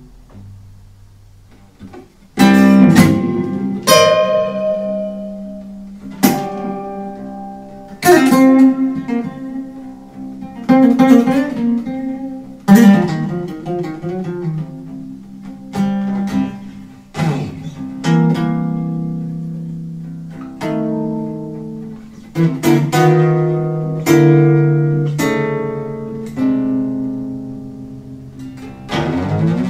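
Solo nylon-string electric-acoustic guitar played slowly and freely: plucked chords and single notes, each left to ring and fade. It comes in about two seconds in.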